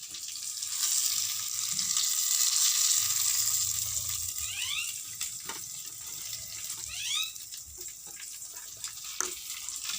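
Chicken pieces sizzling as they fry in hot oil in a pan: a steady high hiss, loudest in the first few seconds, with a few sharp utensil clicks. Two short rising chirps come about halfway through.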